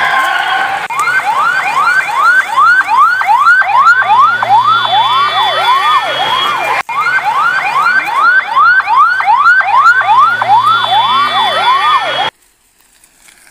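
A siren-like tone, sweeping rapidly up and down about three times a second. It breaks off for an instant about halfway through, starts the same run again, and stops abruptly near the end.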